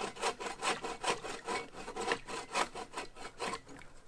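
Hand saw cutting through a log, rapid even back-and-forth strokes.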